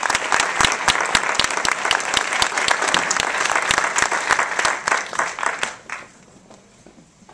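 Audience applauding in a cinema, the clapping dying away about six seconds in.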